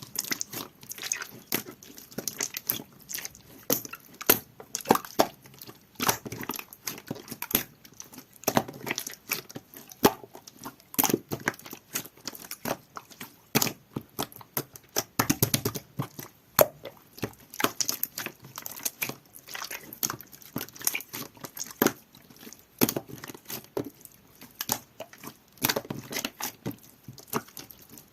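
Jelly-textured clear slime being squished and pressed by hand, giving irregular sticky pops and clicks, several a second.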